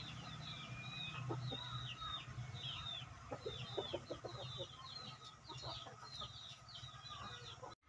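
Aseel chickens clucking softly now and then, with faint high chirping running throughout.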